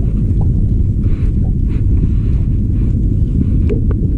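Wind buffeting the camera microphone, a steady low rumble. Faint scratching sounds and a couple of small clicks near the end come from hands working fishing line and a hook.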